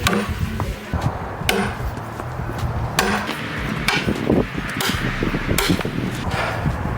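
Sledgehammer striking steel wedges driven into a wet cedar log to split it. About five sharp, metallic strikes, irregularly spaced a second or so apart.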